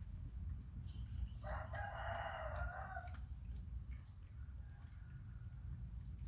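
A rooster crowing once, a single call of about a second and a half starting about a second and a half in.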